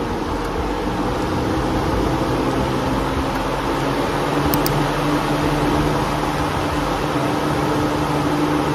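DeWalt drum fan running: a steady rush of air over a low motor hum, growing a little louder over the first few seconds.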